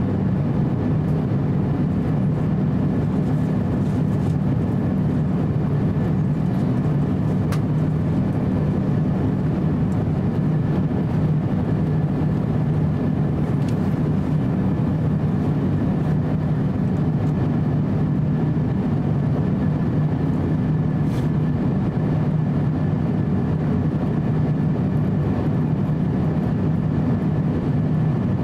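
Steady cabin noise of an Airbus A350-900 in flight, heard from a window seat beside its Rolls-Royce Trent XWB engine. It is a deep, even rumble of engine and airflow, with a faint steady hum above it.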